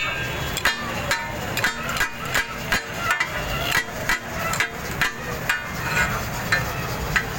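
Steel spatulas striking a flat iron griddle as brains and offal are chopped for taka tak. The clanks are irregular, about two to three a second, each with a short metallic ring.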